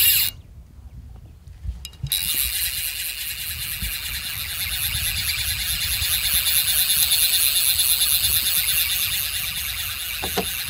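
Fly reel's drag screaming as a hooked bonefish runs and strips line off the reel. There is a short zip right at the start, then from about two seconds in a continuous high-pitched whir with a fine rapid ripple.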